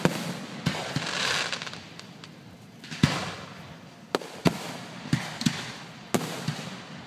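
Fireworks going off: about a dozen sharp bangs at irregular intervals, with a hissing, crackling stretch between about one and three seconds in.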